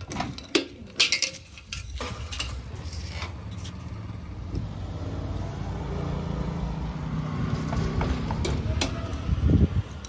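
Key clicks in a motorcycle's fuel-tank cap lock and the cap flipping open, then a petrol pump running steadily as fuel flows from the nozzle into the tank. A louder knock comes near the end.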